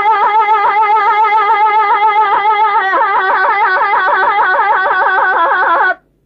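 A solo singer holds one long wordless note with strong vibrato and no instruments. About three seconds in the pitch dips slightly and the vibrato grows wider. The note breaks off near the end.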